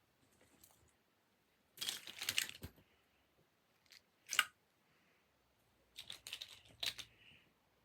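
Stretchy noodle fidget toys being handled and gathered up: short bursts of rustling and crinkling about two seconds in and again near the end, with a sharp click between.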